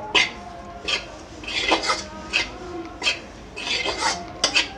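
Metal spatula scraping and stirring besan (gram flour) roasting in ghee in a metal kadhai on low heat. It makes a rasping scrape against the pan with each stroke, about eight strokes in quick succession.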